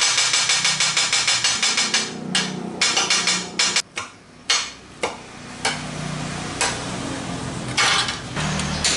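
A chef's knife chopping shallots, garlic and red chili on a cutting board. It starts as a fast, even run of knocks for about two seconds, then slows to scattered single chops.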